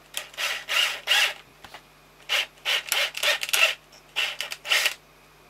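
Drill-driven wire stripper running in short bursts, its blade scraping and chewing wire insulation, in three groups of bursts. The insulation is being mangled rather than stripped cleanly, which is typical of wire too thin for the 4 mm² head or the drill spinning the tool too fast.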